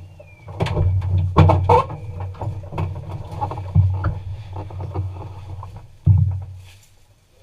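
Inside a stripped rally car's cabin, a driver unbuckles his harness and climbs out of the seat: irregular clunks, rattles and knocks of buckles, body and helmet against the seat and roll cage, with a loud thump about six seconds in, then the cabin goes quiet.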